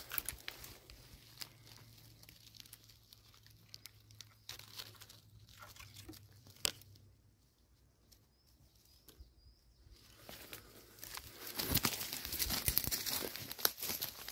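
Footsteps crunching and rustling through dry fallen leaves, with scattered leaf crackles, a quieter stretch in the middle, and louder, denser rustling near the end.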